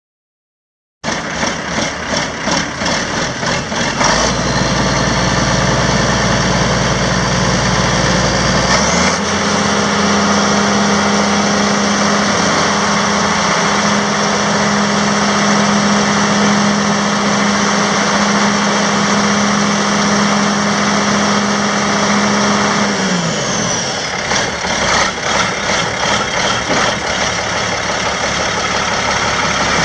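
Case 2670 tractor's 8.3 L six-cylinder diesel engine running at idle, then revved up about nine seconds in and held at a higher steady speed, falling back to a pulsing idle near the end.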